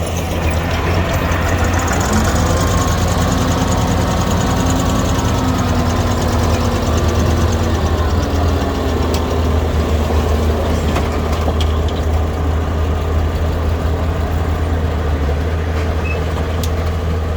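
Diesel engine of heavy earthmoving equipment running steadily, its pitch wavering slightly between about two and nine seconds in.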